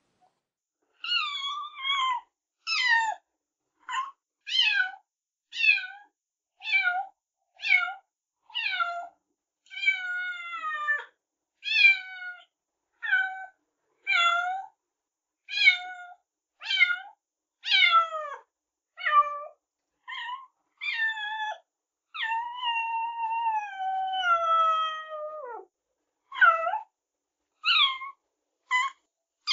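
Cats meowing over and over: short meows that fall in pitch, about one a second, with one long drawn-out meow sliding down near the end.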